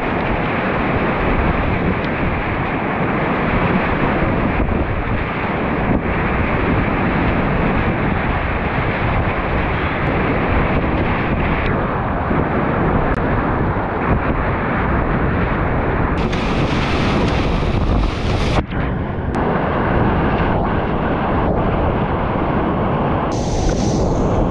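Whitewater rapids of the Little White Salmon River rushing and splashing around a kayak, heard close up through an action camera: a loud, steady rush of water. A sharper, hissier splash about two-thirds of the way in and again near the end.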